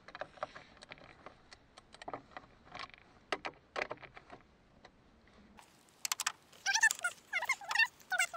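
Light, irregular clicks and taps of gloved hands working at the plastic wiper-motor cover and its fasteners under a van's hood. In the last couple of seconds, several short, high chirps with sliding pitch are the loudest sounds.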